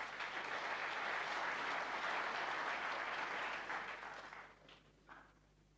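Snooker audience applauding, holding steady for about four seconds and then dying away.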